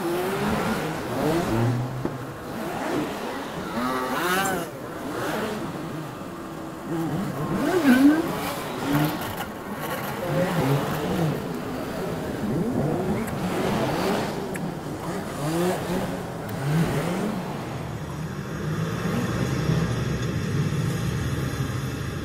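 City street traffic: cars and vans passing through a crossing, engines accelerating, with a steadier low rumble near the end.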